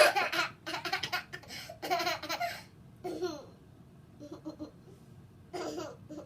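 A child laughing hard in a run of bursts, loudest in the first three seconds, then trailing off into shorter, quieter laughs.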